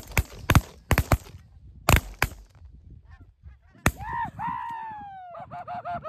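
A volley of about eight shotgun blasts in quick succession over the first four seconds as hunters fire at a flock of incoming Canada geese, followed by goose honking: one long falling honk, then several short honks near the end.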